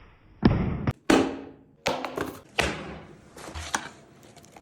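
A series of about five loud, sudden thuds, each dying away over a fraction of a second.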